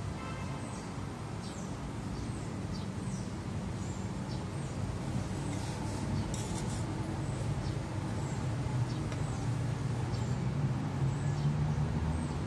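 Small birds chirping, short downward-sliding calls repeated at irregular intervals, over a low steady engine hum that grows louder near the end.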